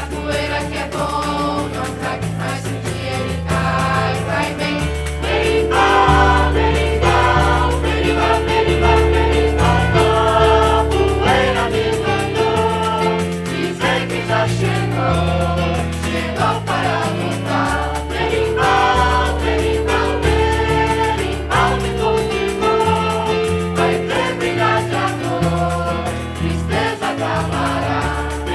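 A choir singing a song over sustained bass notes that change every second or so.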